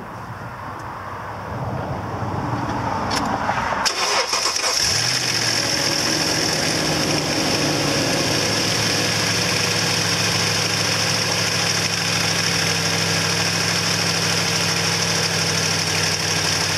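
Toyota Tundra's 5.7-litre V8 cranking and catching about four seconds in, then settling into a steady idle. The crankcase has just been topped up from barely registering on the dipstick, and the engine sounds a lot better for it.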